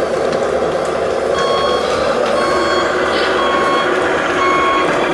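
Reversing beeper on an RC model truck, beeping steadily about one and a half times a second from about a second and a half in, over a steady mechanical hum.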